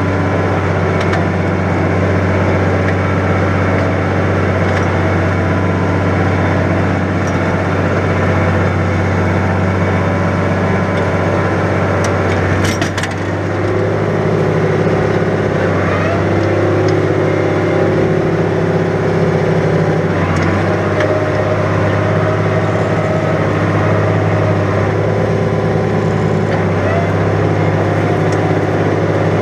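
New Holland 100-90 tractor's diesel engine running steadily under heavy load while pulling a plough through wet, heavy ground. About halfway through the level dips briefly with a few clicks, and the engine note shifts slightly in pitch.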